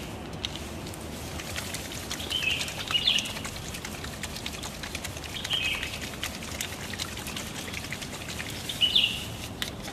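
Small birds chirping in three short bursts, about a second in from the start, mid-way and near the end, over a light patter of scattered clicks.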